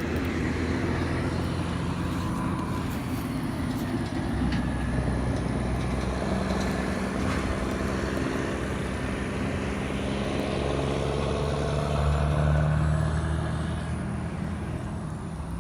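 An engine running with a steady low hum under a noisy background, growing a little louder about twelve seconds in.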